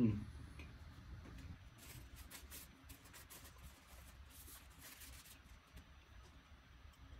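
Faint scratchy rustling: a cluster of short noises from about two to five and a half seconds in, over a low room hum.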